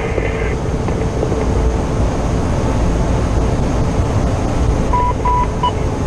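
Fire truck's engine and road noise inside the cab while driving: a steady low rumble. Three short beeps sound about five seconds in.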